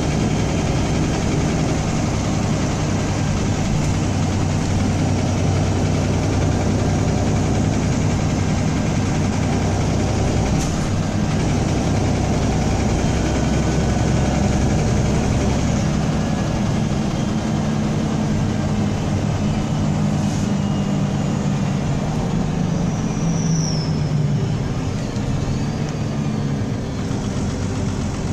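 MAN Enviro 300 bus heard from inside the cabin while under way: the engine runs steadily with a rattle, along with drivetrain noise from a bad differential. A brief high descending squeal comes near the end.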